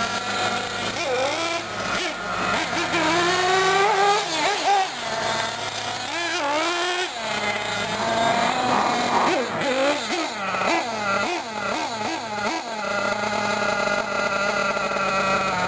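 Nitro engines of 1/8-scale R/C buggies (a Hot Bodies D8 and an Associated RC8) revving up and down as they drive the track, the pitch rising and falling again and again, with more than one engine heard at once at times.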